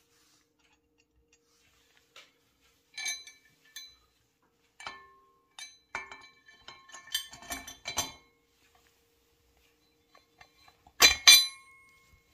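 Steel washers and the aluminium scooter crankcase being handled on a steel worktable: scattered sharp metal clinks with short ringing, the loudest two close together near the end.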